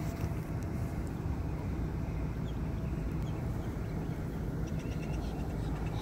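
Car engine idling steadily, a constant low rumble, with a few faint high chirps in the second half.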